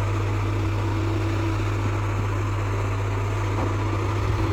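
Machinery running steadily: a constant low hum with a steady higher tone over an even mechanical noise.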